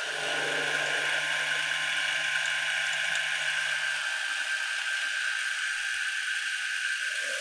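Milling machine running, an end mill cutting into metal with a steady high whine and hiss.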